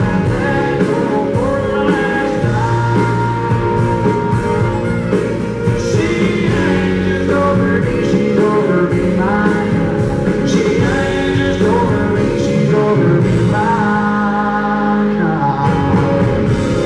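A live country band playing, with a man singing the lead vocal over acoustic guitar, fiddle and drums.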